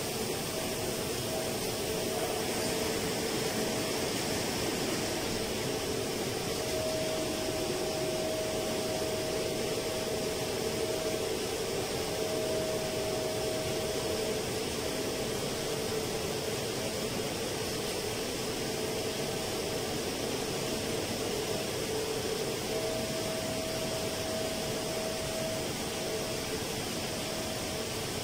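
Steady hum and rush of running machinery, with a faint whining tone that comes and goes.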